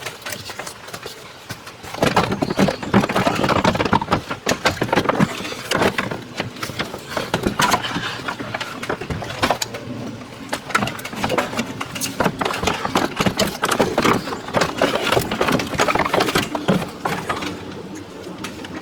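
Handheld power tool working on fasteners under the hood, running loud and uneven in repeated bursts with dense rattling, starting about two seconds in.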